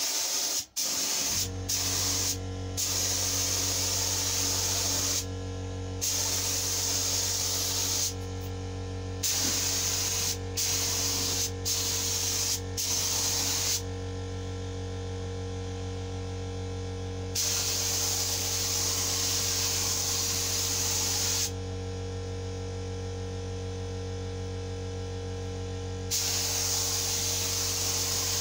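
Gravity-feed spray gun hissing as it sprays lacquer, the trigger pulled in many short bursts at first, then in a few longer passes. A steady low hum runs underneath.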